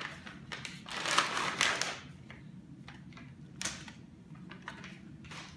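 Sterile peel-pouch packaging being torn open and handled, crinkling and crackling, loudest for about a second near the start, with a shorter crinkle past halfway.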